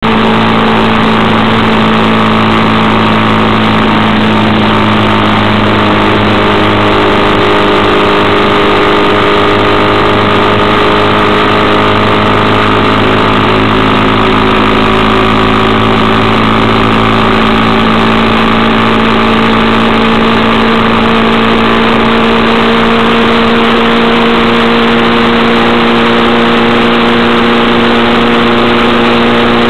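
Engine of a road vehicle cruising at steady speed on an open road: a loud, continuous drone that holds a nearly constant pitch, over a steady rush of noise.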